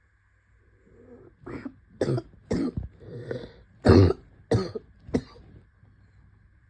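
A person coughing in a fit of about seven coughs in quick succession, starting about a second and a half in, with the loudest near the middle. It is a Covid-19 cough.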